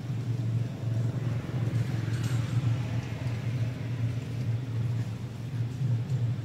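A steady low rumble with a faint hiss over it, continuous and even.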